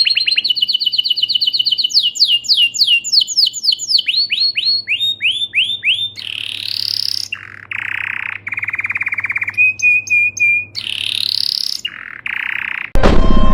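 Bird calls: a long, rapid run of sharp down-slurred chirps that slows gradually over about five seconds, followed by several harsh, buzzy notes.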